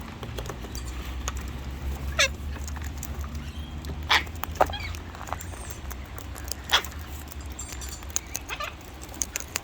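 Wild parrots giving a handful of short, sharp squawks and chirps spread through, over a steady low rumble.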